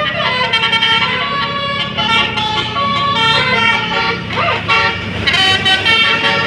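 Basuri telolet musical bus horn playing a quick multi-note melody, its chords changing every fraction of a second with a short rising sweep near the middle, over the low running of the bus's engine.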